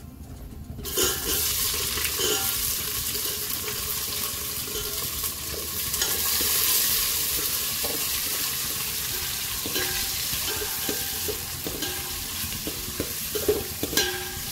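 Sliced onions hit hot ghee in a stainless steel pot and start sizzling about a second in, a steady frying hiss that carries on while a steel ladle stirs them, with scattered knocks and scrapes of the ladle against the pot, most in the last few seconds.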